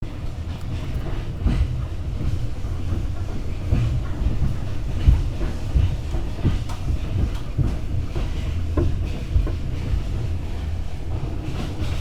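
Passenger train running on the rails: a steady low rumble with irregular clatter and knocks from the wheels and carriage.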